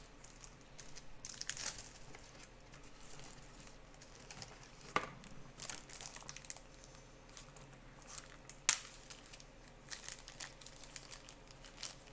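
Plastic crinkling and rustling as trading cards and plastic sleeves are handled while a card is fitted into a magnetic one-touch holder. A few sharp clicks come through, the loudest about nine seconds in.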